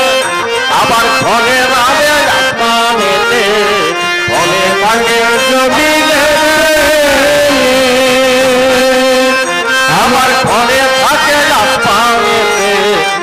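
Instrumental interlude of a Maijbhandari devotional song: a lead melody instrument plays wavering, sliding lines over drum accompaniment.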